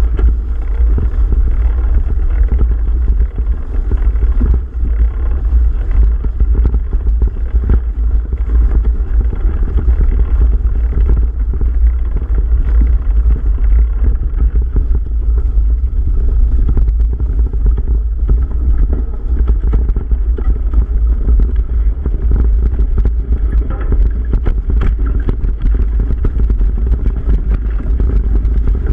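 Mountain bike being ridden over a leaf-covered dirt trail: the bike and tyres rattle and clatter over the ground, with many small knocks. Wind on the microphone makes a loud, steady rumble underneath.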